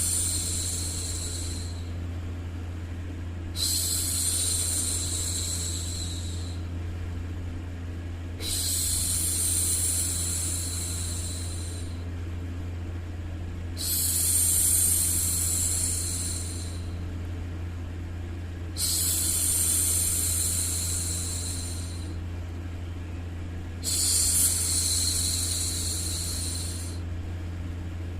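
A woman's voice making long, drawn-out "shhh" hushing sounds to soothe a baby, repeated about every five seconds. Each shush lasts two to three seconds, over a steady low hum of white noise.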